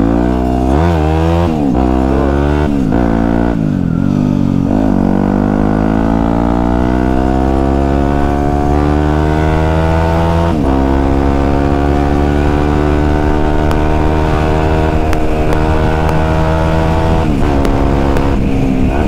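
Yamaha WR250's single-cylinder four-stroke engine being ridden hard. The revs climb and fall back quickly several times in the first five seconds as it is shifted up through the gears. Then comes a long climbing pull, a sharp drop at another shift about ten seconds in, and steady running at speed.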